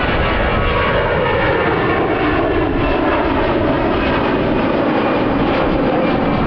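Twin jet engines of an Airbus A320-family airliner at takeoff power during the climb-out, a steady loud roar. Its tone sweeps slowly down and back up as the plane passes.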